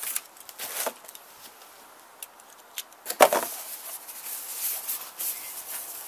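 Rustling and crinkling of thin tissue-paper wrapping being handled and unfolded in a cardboard box, with small scattered clicks and one sharper knock about three seconds in.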